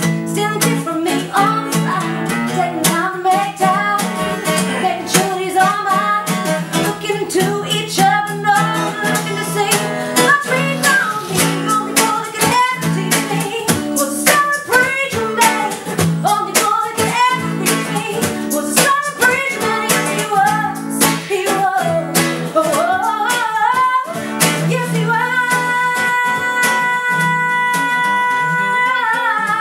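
Acoustic guitar music: a strummed acoustic guitar under a wavering melodic lead line, which settles into one long held note near the end.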